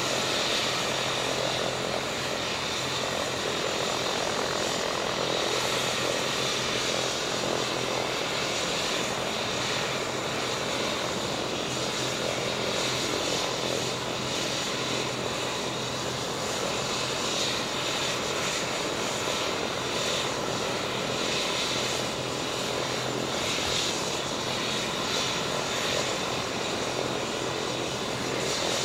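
Landed rescue helicopter's engines running steadily, a constant mechanical drone with a higher whine over it and no change in level.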